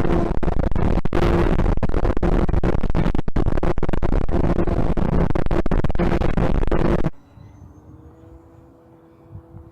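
Loud wind rush over a small camera riding on an E-flite Timber RC plane, with the intermittent buzz of its electric motor and propeller. About seven seconds in it cuts off abruptly to a much quieter stretch with a faint, slowly wavering hum.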